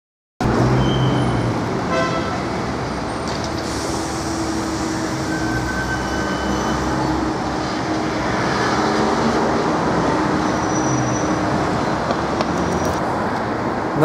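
City street traffic: a steady wash of passing cars and other road vehicles that begins suddenly about half a second in, with a short toot about two seconds in.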